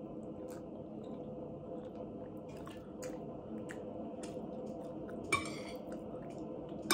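Close-up chewing of rice and ribs, with soft wet mouth smacks. Near the end a metal spoon scrapes and clinks twice against a ceramic plate.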